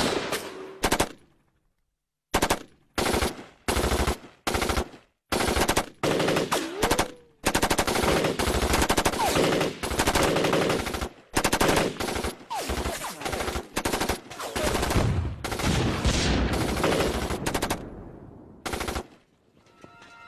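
Gunfire from rifles and automatic weapons. A few single shots come first, then after a short pause shots about twice a second, building about seven seconds in into continuous rapid automatic fire that stops abruptly about a second before the end.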